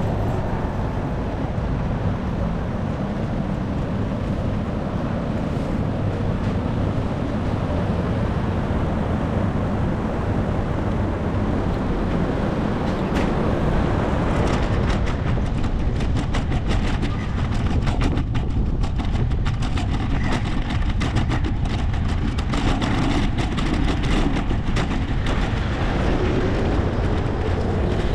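Steady rumble of road traffic and wind heard while cycling alongside a busy road; from about halfway a fast run of clicks and rattles joins in.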